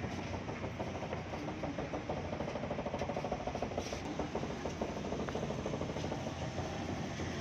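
Steady rumble of a KRL commuter electric train, with a faint fine rattle and a few light clicks.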